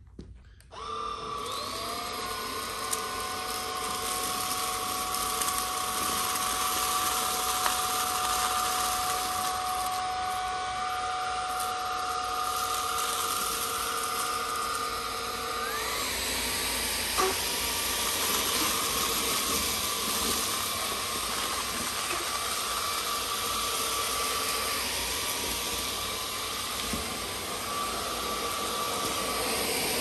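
MOOSOO K17 Pro cordless stick vacuum switching on, its brushless motor spinning up with a rising whine, then running steadily with a high whine and a rushing hiss of air through the motorised floor brush on carpet. About halfway the whine shifts to a different pitch.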